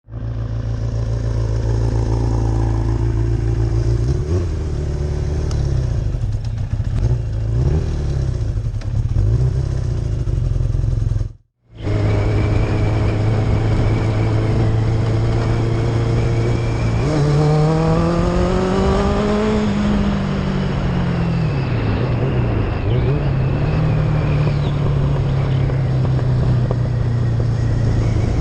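Yamaha FJ1100's air-cooled inline-four engine running while the motorcycle is ridden. The sound cuts out briefly a little before halfway. About two-thirds through, the engine note rises as the bike accelerates, then falls back to a steady cruise.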